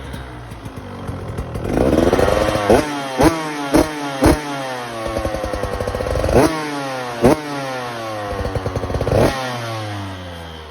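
Cold 2022 KTM SX125 two-stroke engine with an FMF Factory Rev header and stock silencer, revved in a run of sharp quick throttle blips with rising and falling pitch, then easing back down near the end. The exhaust note is really pingy.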